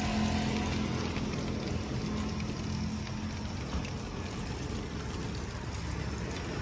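Chicken pieces deep-frying in a wok of hot oil: a steady sizzling, bubbling hiss. A low hum fades out in the first second or so.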